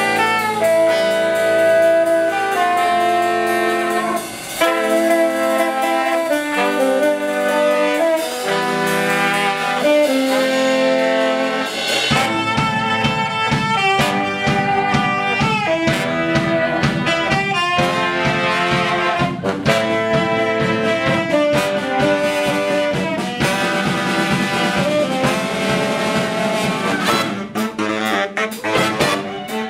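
Live brass band of sousaphone, trombone, trumpet and saxophones including a baritone sax. Held horn chords move slowly for about the first twelve seconds; then a drum kit comes in with a steady beat and the band plays an up-tempo groove.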